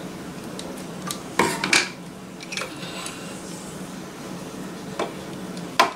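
Scissors and other small items being handled and set down on a sewing machine bed and table: a handful of light clicks and clinks, the sharpest just before the end.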